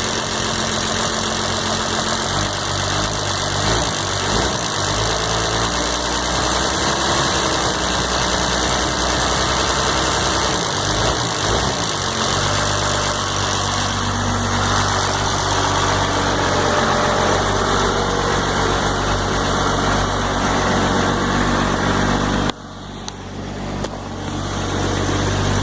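12-valve Cummins diesel idling, wavering for the first dozen seconds and then running steadily. About three-quarters of the way through, the sound drops sharply and then builds back up.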